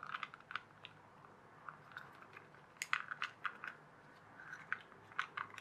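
Light, irregular clicks and taps of small plastic toy parts being handled and shifted as the toy is taken apart, coming in small clusters.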